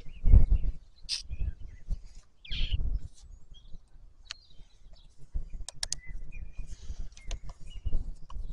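A screwdriver working screws out of a battery chainsaw's plastic housing, giving a few sharp clicks against low rumbling bursts. Birds chirp in the background.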